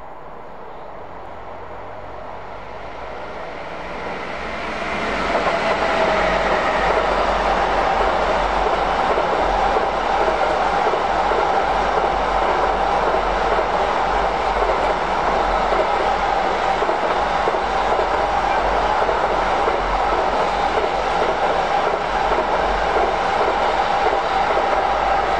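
Czechoslovak class 460 'Tornádo' electric multiple unit passing close by. The train noise builds over about five seconds as it approaches, then stays loud and steady with wheel and rail noise for the rest of the pass.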